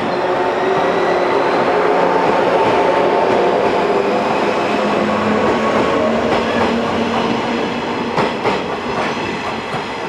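Yellow JR West electric train, Okayama depot set B16, pulling past the platform as it gathers speed: a traction-motor hum that rises in pitch over the first couple of seconds and then holds steady. From about six seconds in, wheels clack over rail joints as the last cars pass, and the sound fades near the end.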